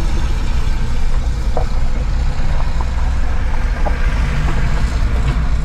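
A car driving, its engine and tyre rumble steady and low, heard from inside the cabin, with a few faint clicks and rattles.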